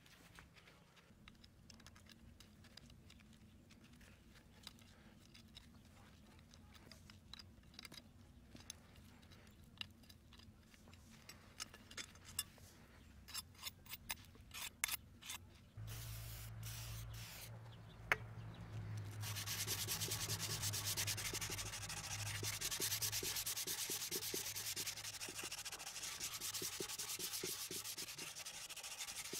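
Faint scattered clicks and taps as the blackened crust is chipped off a forged steel kukri blade. After that comes a low hum, then from about two-thirds of the way in, a louder fast, steady rubbing as abrasive paper is worked by hand along the blade.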